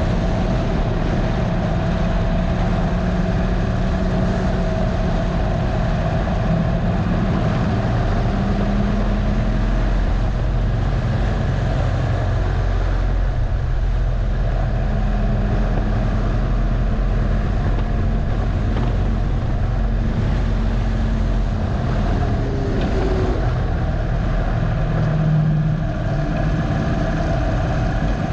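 Harley-Davidson Dyna Low Rider's air-cooled V-twin engine running under way on a race track, its note stepping up and down with gear changes and throttle. A steady rush of wind noise runs under it. It speeds up along a straight and the engine note drops as the bike slows for a corner near the end.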